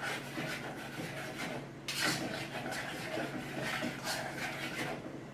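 A spoon scraping and stirring along the bottom of a pot of baked beans in repeated strokes, working loose beans that are starting to stick to the bottom.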